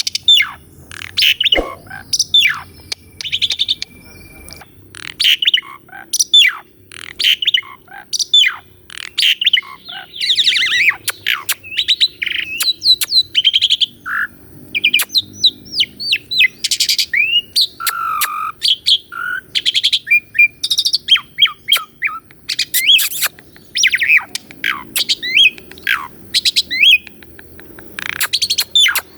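Asian pied starling singing a long, rapid, varied song: a continuous run of short whistles, sweeping notes and sharp clicks with barely a pause.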